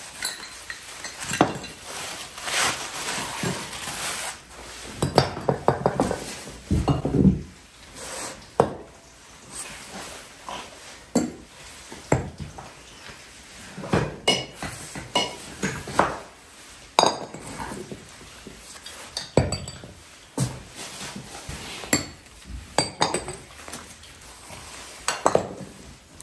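Glass swing-top jars with wire clasps being set down one after another on a hard floor, clinking against the floor and against each other in irregular knocks, some with a short glassy ring.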